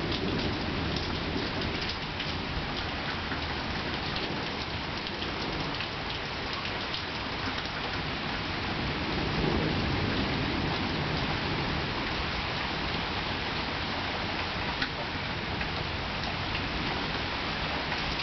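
Rain falling steadily and almost straight down, pattering on surfaces. Low rolls of thunder come at the start and again about halfway through.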